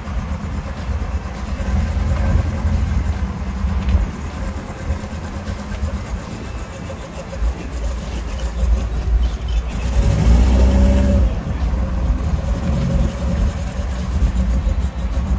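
Air-cooled Volkswagen Beetle flat-four engines running at low speed as the cars creep past in a line, a steady low rumble. About ten seconds in, one engine revs up briefly, rising in pitch and getting louder, then settles back.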